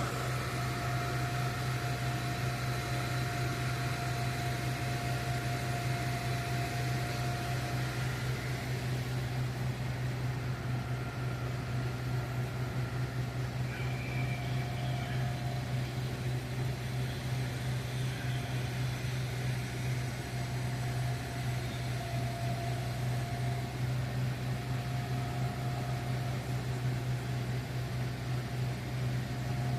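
Vehicle engine idling: a steady low hum, with a faint higher whine that comes and goes.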